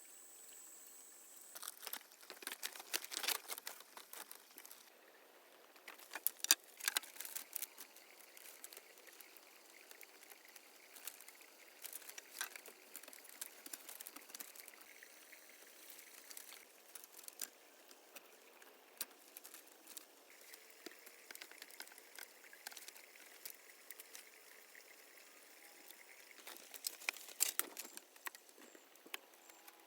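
Irregular small clicks, taps and rustling, clustered about two to four seconds in, around six to eight seconds in, and again near the end.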